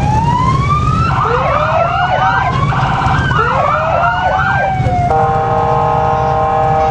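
Several electronic emergency-vehicle sirens sounding at once, their rising and falling wails and yelps overlapping. About five seconds in they give way to a steady, chord-like horn tone for about two seconds, over a low rumble.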